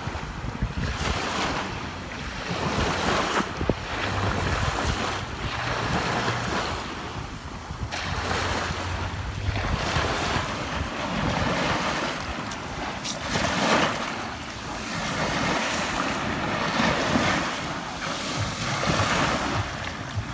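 Sea waves washing onto a sandy shore, the surf swelling and falling back every few seconds.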